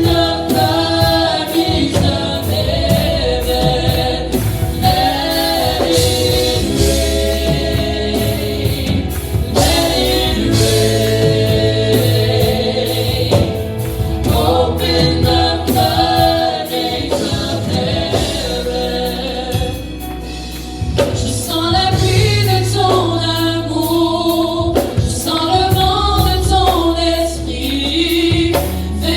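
Gospel worship song sung by a choir, with a steady bass and beat under the voices.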